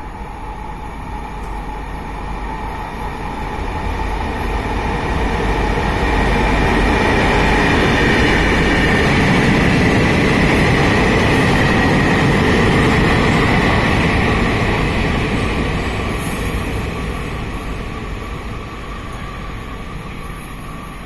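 Freight train hauled by an R-series diesel-electric locomotive, with five loaded open wagons and a caboose, rolling through a station. It grows louder as it passes, is loudest around the middle, then fades as it moves away, with a high steady whine over the rumble of the wheels.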